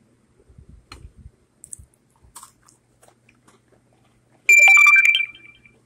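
A person eating chocolate chip cookies close to the microphone: faint crumbly clicks as a cookie is handled and nibbled, then a loud, squeaky crunch lasting about a second, about four and a half seconds in.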